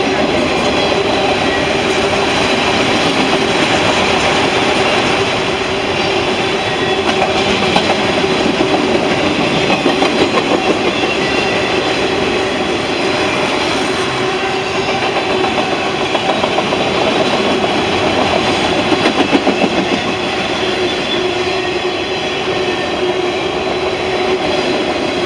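Loaded autorack freight cars rolling past at speed: a steady rumble of steel wheels on rail with clickety-clack over the rail joints, and steady ringing tones over the noise.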